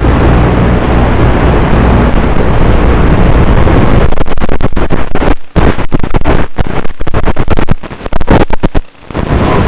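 Small FPV racing quadcopter's electric motors buzzing along with wind noise on the drone's own camera microphone. The sound is steady for about four seconds, then breaks into rapid, choppy cuts and dips until near the end.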